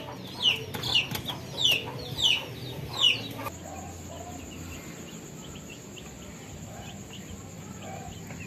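Rhode Island Red and Black Australorp chicks peeping, loud short falling peeps about twice a second. About three and a half seconds in they drop away to faint peeps under a steady high-pitched whine.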